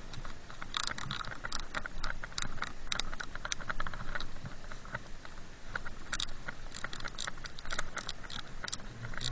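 Gloved hands digging and scraping in powder snow around a snowboard binding close to the microphone: a dense, irregular run of scratchy crunches.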